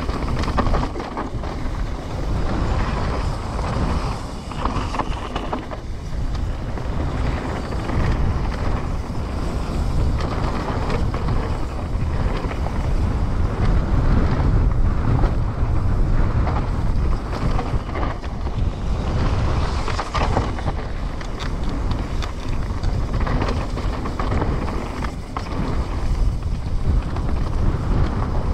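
Wind buffeting the action camera's microphone over the rolling and rattling of a Trek Slash 9.9 enduro mountain bike riding down a dirt trail, with a steady stream of small knocks and clatters from the bike and tyres.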